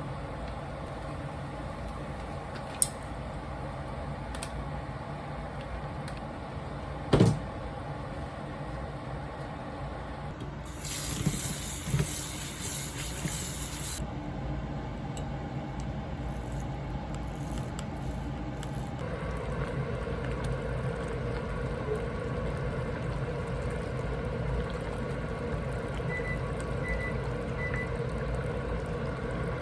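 Kitchen sounds during cooking: a steady hum, a knock about seven seconds in, and water from a tap running for about three seconds. Three short high beeps come near the end.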